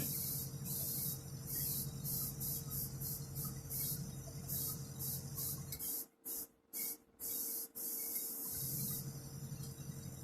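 Airbrush spraying paint in a series of short hissing bursts, over a steady low hum. The sound drops out almost completely a few times about six to eight seconds in.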